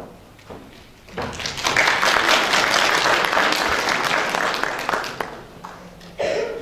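Audience applauding in a hall to welcome performers. The clapping starts about a second in, runs steadily for about four seconds, then dies away.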